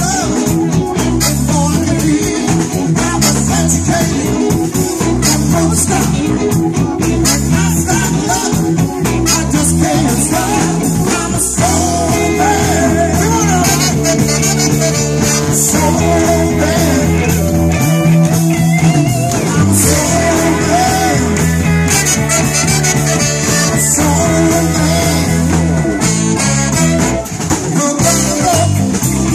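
A live blues band with a horn section, trumpet, trombone and saxophone, playing over drums and a repeating bass line.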